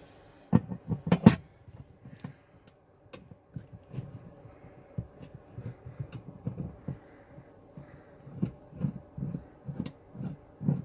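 Irregular clatter of small metal tools and parts being handled and set down, with a quick run of loud knocks about a second in and scattered lighter knocks and clicks after.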